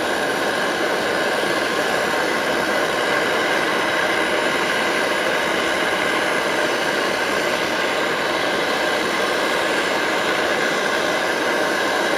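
MSR Dragonfly white-gas stove burning steadily at full pressure, its fuel bottle pumped up with about 50 strokes: a really loud, even rushing noise.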